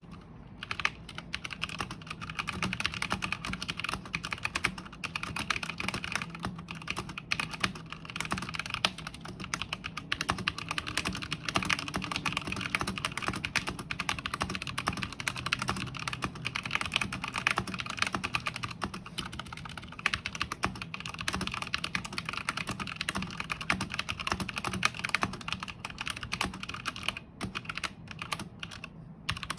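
Continuous fast typing on a Tecware Phantom 104 mechanical keyboard with Outemu Red linear switches in a steel plate and ABS OEM-profile keycaps: a dense stream of key clacks, with a brief lull near the end.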